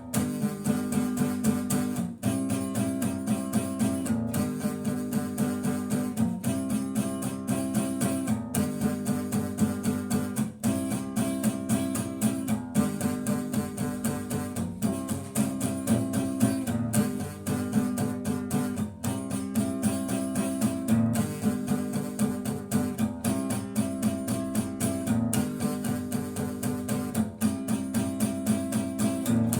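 Instrumental passage of a rock song: guitar strumming chords in a steady rhythm, the chord changing about every two seconds, with no singing.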